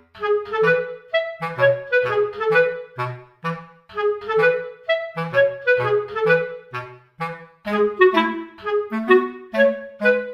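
Background music: a bouncy tune of short, separate notes over a plucky bass line.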